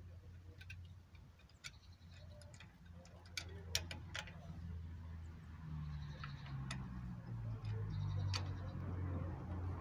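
Sharp metallic clicks of a ratchet wrench being worked on a car's wheel, coming irregularly with a cluster about three to four seconds in, over a low steady hum.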